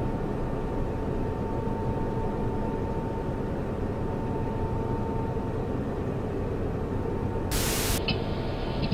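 Steady low rumbling noise with a faint, thin steady tone. About seven and a half seconds in, a burst of loud static hiss breaks in.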